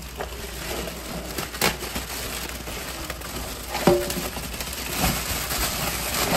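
Plastic grocery bag crinkling as live crabs are shaken out of it into a stainless steel sink, their shells and claws knocking against the metal; the sharpest knock, about four seconds in, rings briefly.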